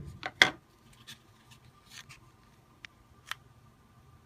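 Light handling of a plastic mold and plastic sculpting knife while trimming soft modeling dough: one sharp click about half a second in, then a few faint scattered clicks and taps.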